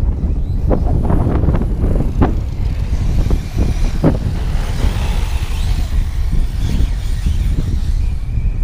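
Wind rumbling on the microphone, with a few short sharp knocks in the first half and a faint high whine from the electric RC trucks' motors later on.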